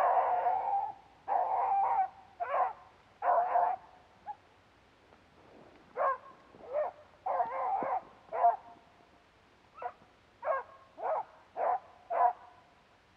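Beagle hounds baying on a rabbit's trail: a drawn-out bawl at the start, then a string of shorter barks with pauses between them.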